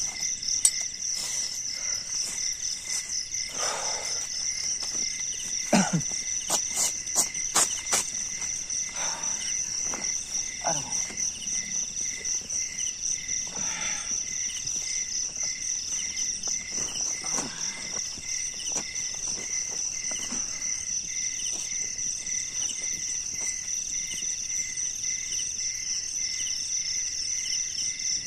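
Night insect chorus of crickets: a steady, high pulsing trill over a lower chirp that repeats in an even rhythm. During the first dozen seconds there is rustling and a few sharp knocks as a person moves about and lies down on a plastic ground tarp.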